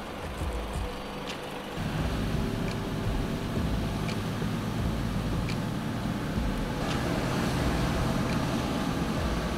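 Mercedes-Benz Unimog truck's diesel engine running as the truck drives along a paved road, the rumble coming in fuller about two seconds in. A faint tick recurs about every second and a half.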